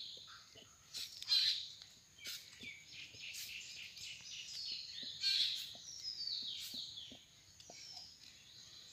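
Birds calling: repeated high chirps that fall in pitch, loudest about a second and a half in and again about five seconds in.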